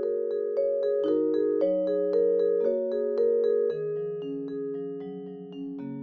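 Relaxing instrumental background music played on mallet percussion: chords of sustained ringing notes that change every half second or so over a soft low beat.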